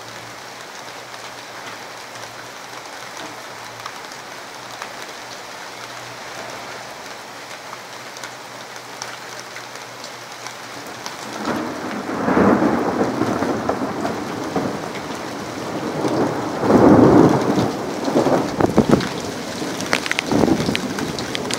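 Rain falling steadily with an even hiss, then from about halfway thunder rumbling over it in several rolling swells, the loudest a little after the middle.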